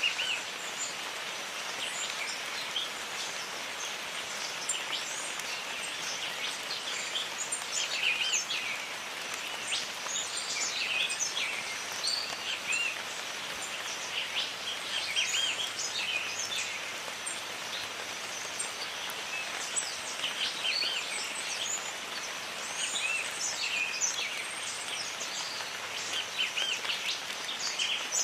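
Steady rain falling in a jungle, with many small birds chirping throughout.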